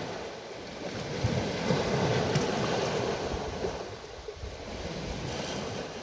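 Sea surf washing onto a pebble beach, a steady rush that swells and eases, with wind buffeting the microphone.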